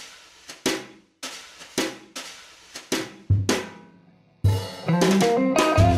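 Background music: a drum-kit beat of snare and kick strokes on its own, then after a brief break about four and a half seconds in the full band comes in with bass and pitched instruments.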